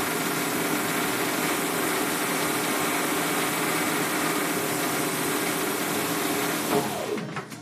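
Benchtop metal lathe running steadily while a pen blank is turned. Near the end the motor is switched off and the spindle winds down, its pitch falling.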